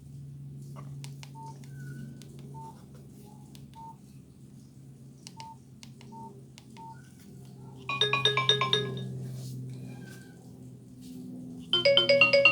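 Nokia 6085 mobile phone speaker playing two short alert tones, each a quick run of bright electronic notes lasting about a second, the first two-thirds of the way through and the second at the end. Before them come a few faint short beeps over a low steady hum.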